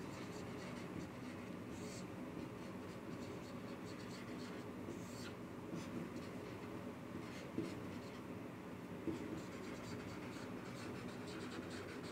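Marker pen writing on a whiteboard: faint strokes of the tip on the board as words are written and underlined.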